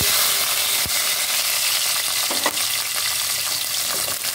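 Shallots dropped into hot sunflower oil in a steel pan, sizzling steadily as they are stirred, with one sharp knock about a second in.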